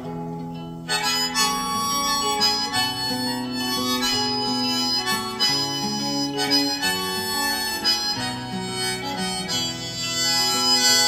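Instrumental break in a Korean folk song: a melody line over accompaniment, with no singing.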